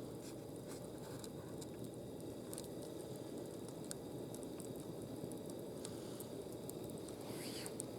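Wood campfire crackling, with scattered sharp pops over a steady low rushing noise.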